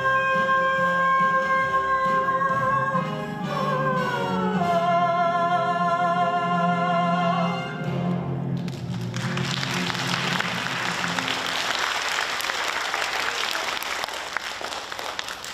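A singer with accompaniment holds a long final note, glides down to a lower held note with vibrato, and ends about seven and a half seconds in. Audience applause follows and fades near the end.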